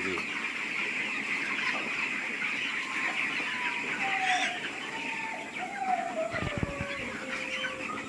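A flock of young broiler chicks peeping together: a dense, steady high chatter. A couple of soft low knocks sound about six and a half seconds in.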